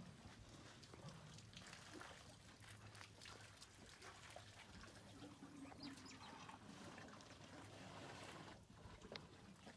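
Faint trickling and splashing of water as African elephants drink at the water's edge, siphoning water up with their trunks, with small scattered clicks.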